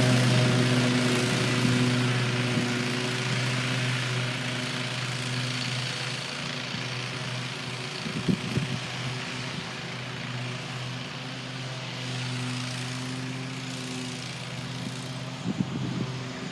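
Toro GrandStand stand-on mower running steadily while mowing, its engine hum slowly getting fainter.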